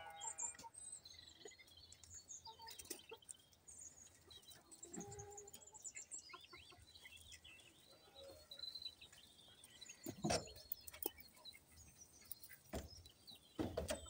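Faint, scattered bird chirps and short calls, with a lower call about five seconds in. Two brief scuffling bursts, about ten seconds in and near the end, come from a Coturnix quail sand-bathing in a plastic pan of sand.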